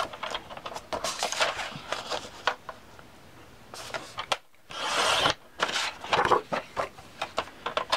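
Paper being handled on a plastic paper trimmer: rustling with light taps and knocks, and a short scraping slide about five seconds in.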